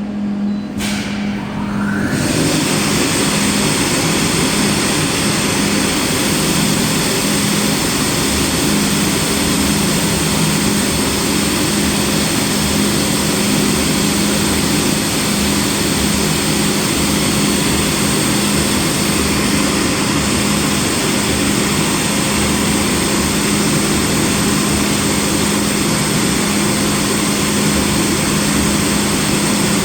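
CNC film cutter for snowboard base sheet starting a cutting run: a loud, even machine noise with a thin high whine comes in about two seconds in and runs steadily over a constant low hum.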